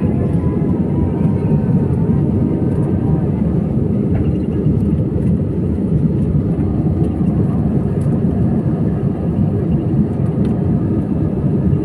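Steady low rumble of engine and airflow noise inside a passenger airplane's cabin.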